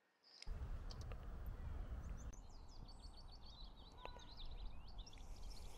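Outdoor ambience starting about half a second in: a steady low rumble of wind on the microphone, with small birds chirping in quick runs of short high notes from the trees.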